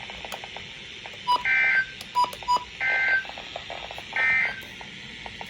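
Weather radio broadcasting the EAS end-of-message data signal: three short two-tone digital squawks about 1.4 seconds apart, with a few brief beeps and clicks between them. It marks the end of a warning message.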